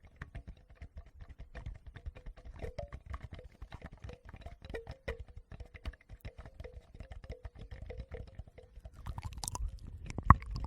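Close-miked ASMR trigger sounds on a Tascam recorder: a dense run of small clicks and crackles, with a couple of heavier knocks near the end.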